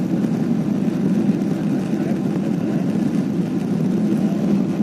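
Airliner engines at takeoff power during the takeoff roll, a steady loud noise heard from inside the passenger cabin.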